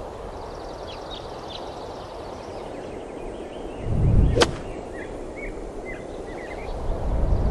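Steady outdoor hiss with small birds chirping now and then. About four seconds in, a low whoosh swells and ends in one sharp crack, a golf club striking the ball.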